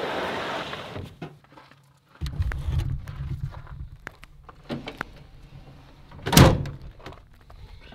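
A plywood storage drawer in a truck-bed camper sliding shut with a scraping rub. Scattered knocks and clicks from handling follow, with one loud thump about six seconds in.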